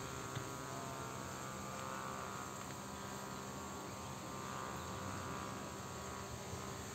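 Steady outdoor background drone: a high hum that swells and fades every couple of seconds over a low steady hum, with one small click just after the start.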